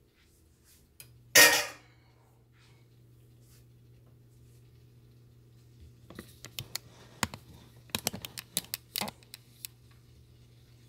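Mixed vegetables frying in a wok, with sharp popping and crackling that grows denser from about six seconds in as their water cooks off. About a second and a half in there is one brief, loud clatter, and a steady low hum starts at about the same time.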